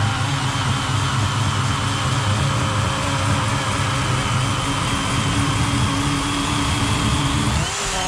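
Worx 40-volt cordless electric chainsaw with an 18-inch Oregon bar cutting through a large fallen log under load: a steady motor whine with the chain ripping through the wood. Near the end the tone shifts and rises as the load on the chain changes.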